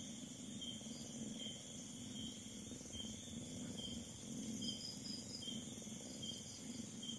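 Crickets chirping at night, one giving a short high chirp about once a second while others trill in short pulsed bursts, over a faint low steady murmur.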